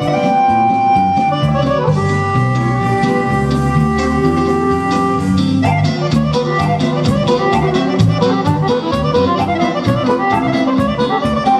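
Live Balkan brass band music for a kolo dance, with trumpet and saxophone: long held notes for the first six seconds or so, then a quicker run of notes over a steady beat.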